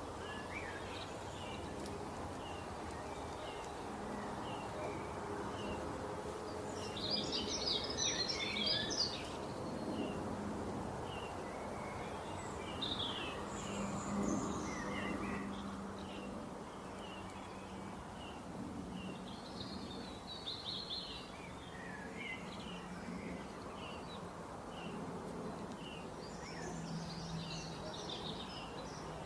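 Small birds chirping over a steady low background hum, with bursts of quick twittering about seven seconds in, around twenty seconds, and near the end.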